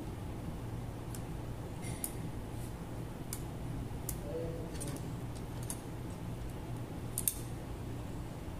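Irregular light metallic clicks and clinks as a Kawasaki Z1000's clutch plates are worked loose and slid out of the clutch basket by hand, the sharpest about seven seconds in, over a steady low hum.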